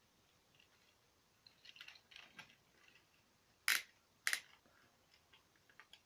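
Plastic joints of a Transformers leader class Megatron action figure being worked by hand: faint rustles and small clicks, then two sharper clicks about half a second apart near the middle, typical of ratchet joints.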